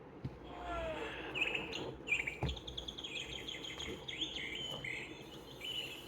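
Recorded birdsong played from a children's sound-book speaker: quick chirps and trills. A couple of soft thumps sound as the button is pressed.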